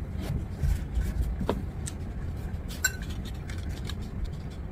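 A fork clinking and scraping against a bowl while salad is tossed and eaten, with scattered light clicks and a couple of sharper, briefly ringing clinks.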